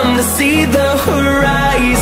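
Background pop music with a steady bass line that moves to a lower note about halfway through.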